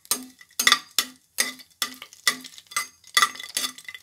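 Metal slotted spatula stirring whole spices frying in oil in a pressure cooker pot, scraping and knocking against the pot about twice a second, each stroke with a short metallic ring.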